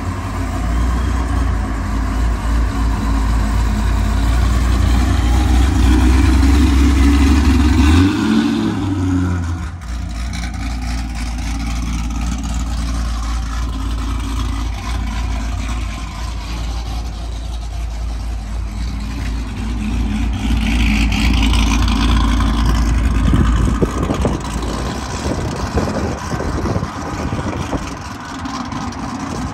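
ProCharger-supercharged Pontiac G8 GT's 6.0-litre V8, with a cam, Kooks headers and Solo exhaust, rumbling as the car drives slowly around a lot. It grows louder over the first several seconds, cuts out briefly, then runs on steadily with another swell later on.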